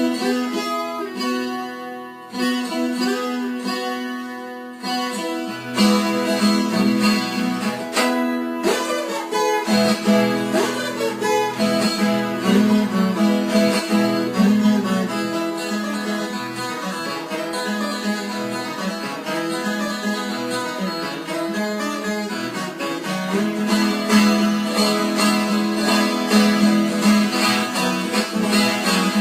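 Background music led by plucked acoustic guitar, with strings joining; it starts sparse and soft and fills out about six seconds in.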